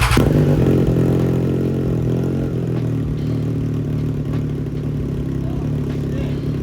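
2018 Triumph Street Triple's three-cylinder engine, just started, idling steadily through a Racefit Growler X slip-on exhaust that keeps the stock headers and catalytic converter. It is loudest in the first second after catching, then settles to an even idle.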